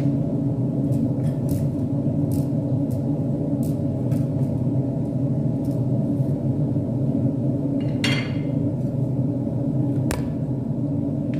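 Steady low kitchen rumble with faint scattered pops from coconut milk cooking with bamboo shoot strips in a pan. About eight seconds in comes a short scrape, and about two seconds later a sharp tap, as a utensil pushes the shoots down into the milk.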